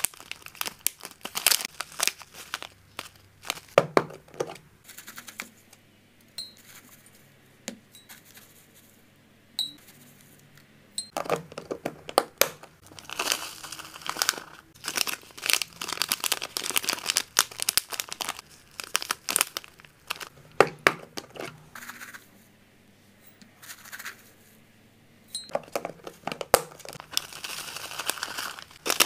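Clear plastic zip bag crinkling as it is handled and filled with dried herbs and leaves poured from a plastic scoop, the dry leaves rustling into the bag. The crinkling comes in three busy stretches separated by quieter pauses.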